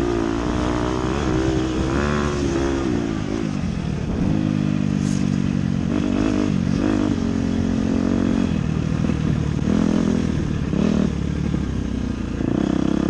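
Dirt bike engine revving up and down repeatedly as the rider accelerates and backs off through the corners of a motocross track, heard from a camera mounted on the bike, with rushing air noise.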